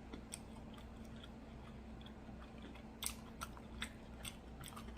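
Close-miked chewing of a fried chicken and waffle sandwich: faint at first, then a run of crisp crunches and wet mouth clicks from about three seconds in.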